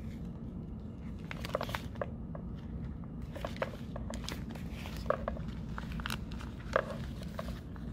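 Clear plastic waterproofing bag crinkling and crackling in irregular bursts as it is handled and opened, over a steady low hum.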